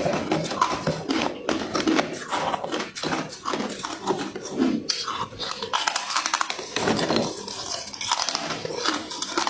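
Frosty ice being crunched and chewed in the mouth: a dense run of crisp cracks as the ice breaks between the teeth.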